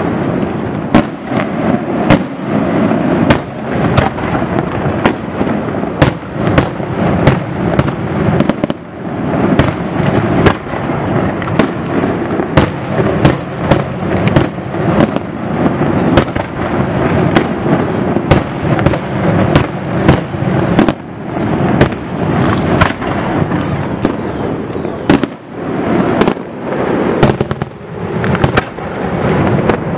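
Aerial firework shells bursting in rapid succession: loud, sharp bangs several times a second over a continuous rumble of reports.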